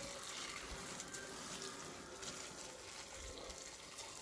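Stir-fry sizzling in a hot pan: a steady hiss with fine crackling.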